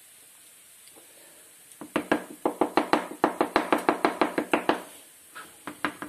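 Chef's knife chopping boiled eggs finely on a plastic cutting board: a fast run of sharp knocks, about six a second, starting about two seconds in. After a short pause near the end, the chopping starts again.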